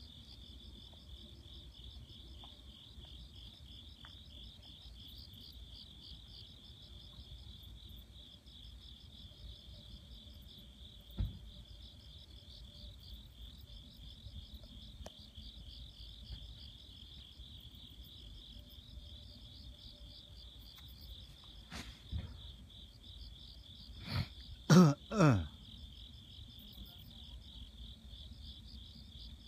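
Crickets chirping in a steady, rapidly pulsing high trill. A brief, louder vocal sound from a person, like a short cough, comes near the end, and there is a single faint knock partway through.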